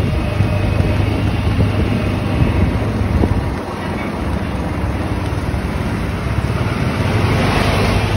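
A moving golf cart's running noise: a steady low motor hum with road rush and wind on the microphone, growing louder near the end.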